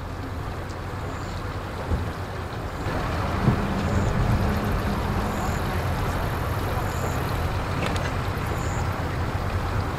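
Engine running with a steady low rumble, growing louder about three seconds in, with a single sharp knock about three and a half seconds in.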